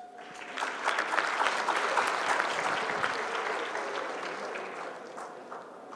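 Audience applauding, building over the first two seconds and then slowly fading.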